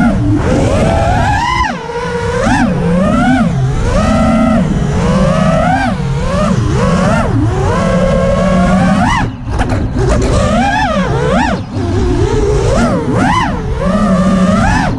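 FPV quadcopter's brushless motors whining, the pitch swooping up and down sharply with each throttle punch. There is a dense rushing noise underneath. The throttle drops off briefly about nine seconds in and again near twelve seconds.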